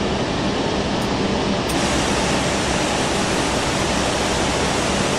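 Steady rushing noise of a Lufthansa Airbus A380 sitting on its jet engines at idle as it comes onto the stand, with a faint low hum underneath. The hiss turns a little brighter about two seconds in.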